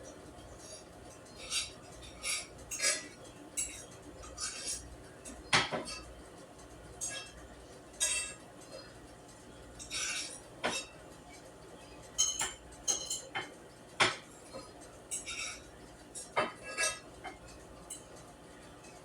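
Kitchen dishes and utensils clinking and knocking now and then, with irregular gaps; two sharper knocks stand out, about a third of the way in and again about three quarters in.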